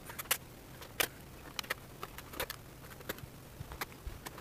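Light, scattered clicks and taps of toy packaging being handled while an action figure is unboxed, about eight short sharp ones spread irregularly through a few seconds.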